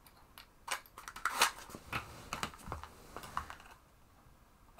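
Matchbox being handled and slid open, with a run of irregular small clicks, rattles and short scrapes as a match is taken out, the loudest about a second and a half in.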